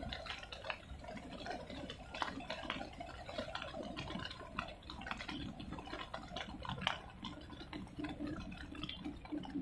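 Choppy water lapping and splashing below the railing, with many irregular small splashes.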